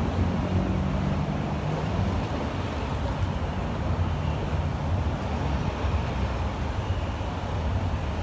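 Steady low rumble of city road traffic. A low engine drone fades out about two seconds in.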